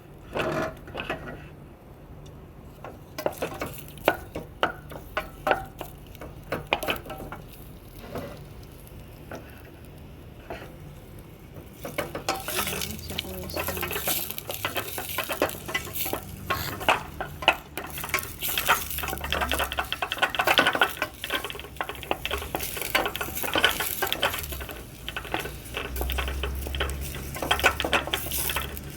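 Onions frying in hot oil in a pan, sizzling, while a utensil clicks and scrapes against the pan as they are stirred. The sizzle grows much louder about twelve seconds in.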